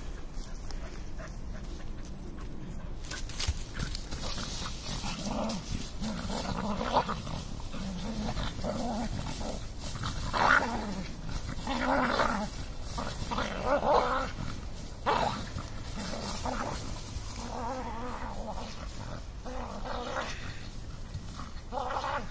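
A Kerry Blue Terrier and a Soft-coated Wheaten Terrier play-fighting in dry leaves: repeated growling starts about three seconds in, over the scrape and rustle of leaves as they wrestle.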